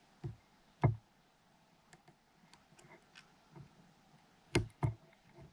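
Scattered clicks and knocks of a small tool and a GoPro camera's case being worked open by hand. There are two knocks early, the louder about a second in, faint ticks in between, and a quick pair of knocks about four and a half seconds in.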